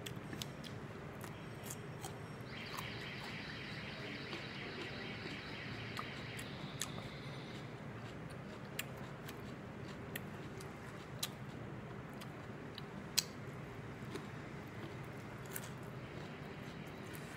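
Quiet eating by hand: scattered soft clicks and ticks of fingers on a plate and of chewing, over a steady low hum. A high, rapid chirring sounds in the background from a couple of seconds in and lasts about five seconds.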